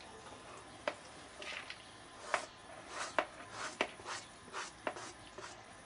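Chopped parsley being pushed by hand off a plastic cutting board into a plastic bowl: soft scrapes, with about five sharp taps of the board against the bowl.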